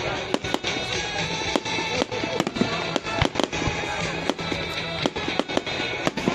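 Fireworks display: an irregular string of sharp bangs and crackles, several a second, with music playing underneath.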